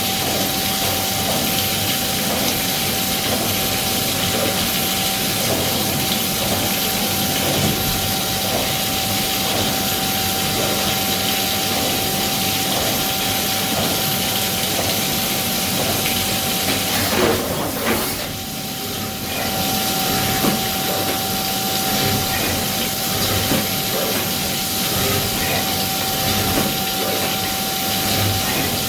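CNC milling machine running, a steady high whine over a constant hiss with faint ticking. The whine drops out briefly about two-thirds of the way through, then comes back.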